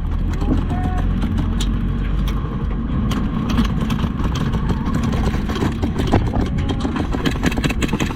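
Truck engine running steadily, with many short sharp clicks scattered over it.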